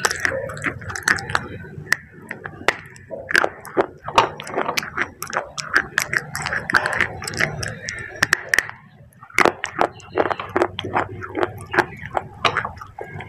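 Close-miked crunching and chewing of thin baked-clay pot pieces: many crisp, sharp cracks in quick succession, easing off briefly a little before nine seconds in.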